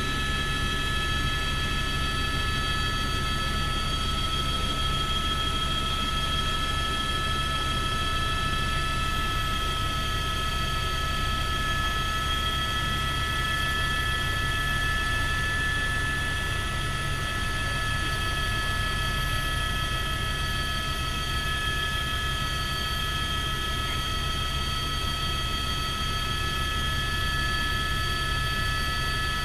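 Helicopter cabin noise in flight: a steady low rumble from the rotor and engine with several steady high whine tones over it, unchanging throughout.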